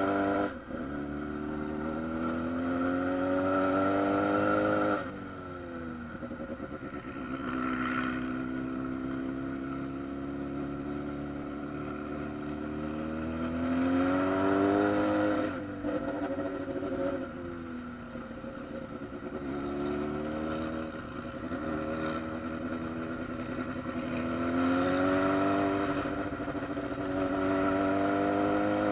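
Honda Hornet motorcycle engine under way in traffic, its pitch rising in long climbs as it accelerates. The engine note drops abruptly as the throttle closes, about five seconds in and again about fifteen seconds in, then climbs again toward the end.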